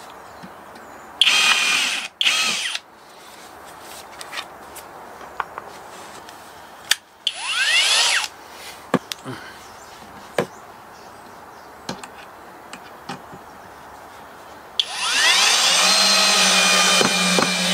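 HOTO 12V brushless cordless drill running in short bursts into wood for a pilot hole, its motor whine rising as it spins up. There are handling clicks between the bursts, then a longer run of about three seconds near the end.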